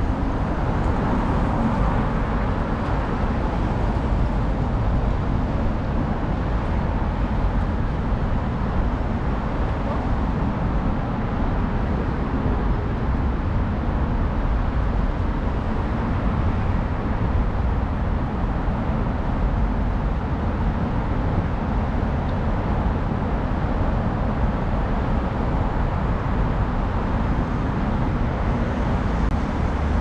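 Steady city street ambience dominated by the continuous hum of road traffic, an even, unbroken noise with no distinct events standing out.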